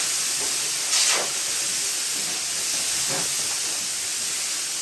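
Canned compressed air dusters, two sprayed at once, giving a loud, steady hiss as they blow dust off.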